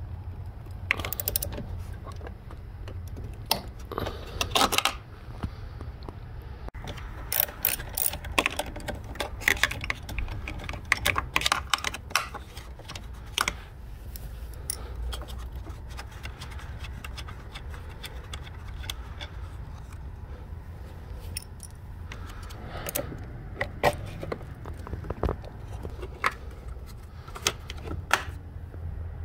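Ratchet wrench clicking in rapid bursts as a socket turns the nut on a car battery's terminal clamp, with light metallic clinks from handling the loosened clamp and its cover.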